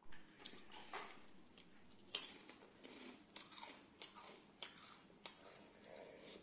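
A person chewing and biting food close to the microphone, with irregular sharp crunchy clicks; the loudest crunch comes about two seconds in.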